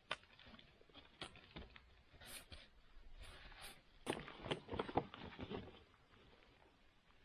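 MSR Lightning Ascent snowshoes being taken off and handled: scattered clicks, rattles and scrapes from the bindings and metal frames, busiest about four to five and a half seconds in.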